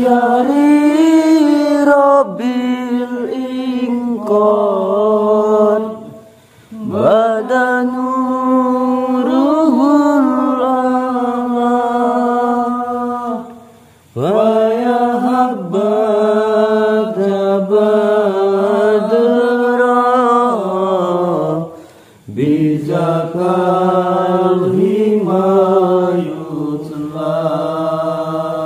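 A voice chanting a sholawat (Islamic devotional chant) in long, drawn-out melodic phrases, pausing for breath every six to eight seconds.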